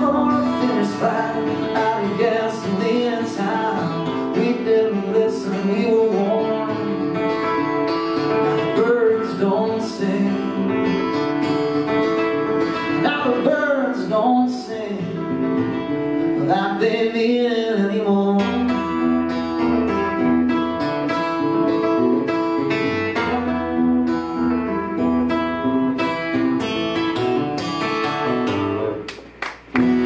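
Acoustic guitar strummed and picked, with a man singing along. The playing breaks off briefly near the end.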